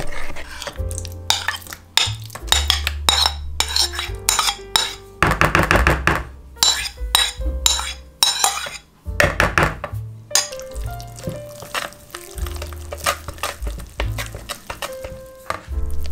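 A wire whisk beating batter in a plastic mixing bowl, its wires clattering and scraping against the bowl in quick, uneven runs of strokes, over background music with a steady bass line.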